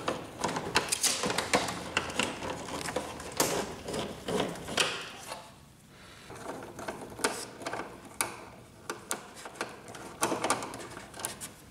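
Plastic parts and flat ribbon cables of a Canon MP-series inkjet printer being handled and fitted by hand: a run of light clicks, taps and rustles, quieter for a moment near the middle.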